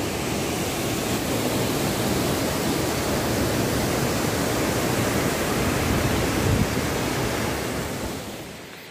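Tall waterfall pouring: a steady, dense rush of falling water, which drops away sharply near the end.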